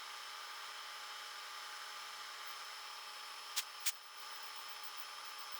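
Faint steady hiss, broken a little past halfway by two short sharp clicks about a third of a second apart.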